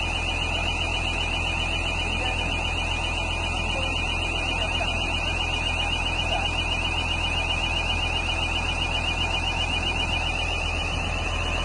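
Continuous rapid warbling alarm tone from the travel warning alarm of an EvoQuip Colt 600 tracked mobile screen, warning that the machine is tracking. Under it runs the steady low hum of the machine's diesel engine.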